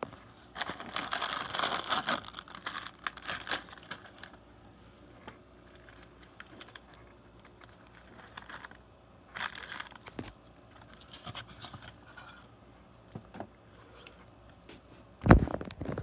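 Plastic bags of LEGO bricks crinkling and scraping against a cardboard box as they are pulled out, in several bursts. A loud thump near the end.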